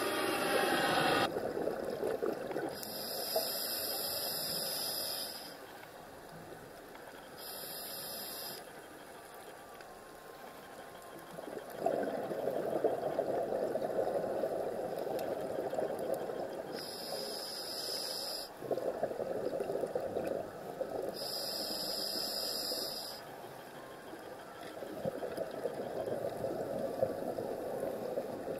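Underwater sound of a scuba diver breathing through a regulator: four hissing inhalations, each one to two and a half seconds long, alternating with longer rumbling, bubbling exhalations that swell and fade.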